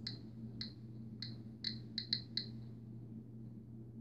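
GQ GMC-320 Geiger counter clicking once per detected count at random, uneven intervals, about seven clicks in the first two and a half seconds, then a pause. Its exposed tube is picking up the low-level radiation of modern uranium glass, reading about 35 counts per minute.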